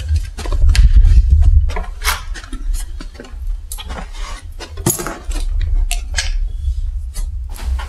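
A ring of keys jangling and clicking as someone sorts through them for the right key to unlock a door. A low rumble runs underneath, strongest in the first two seconds.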